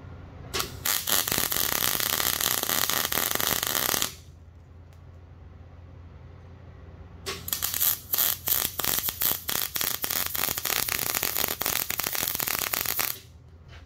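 MIG welder arc crackling as a steel axle truss is welded onto a Dana 60 axle housing, in two runs: one from about half a second in to about four seconds, and a longer one from about seven seconds to near the end. A steady low hum runs underneath.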